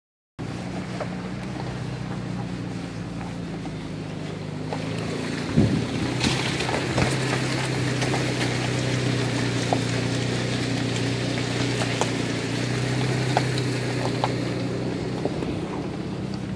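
Toyota FJ Cruiser's 4.0-litre V6 engine running steadily as it climbs a rocky dirt trail, heard from inside the cab, with a few sharp knocks and rattles from the rough track.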